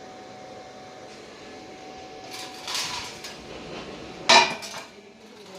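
Pieces of cut hollow steel tube being handled: a scraping metal clatter about two and a half seconds in, then a sharp clank about four seconds in with a few lighter knocks after it.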